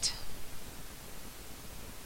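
A pause filled only by a faint, steady hiss of background noise on the recording.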